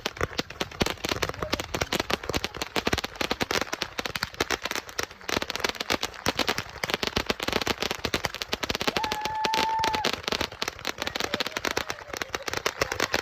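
Consumer fireworks firing a rapid, continuous stream of sharp pops and crackles, many shots a second. A steady whistle-like tone sounds for about a second around nine seconds in.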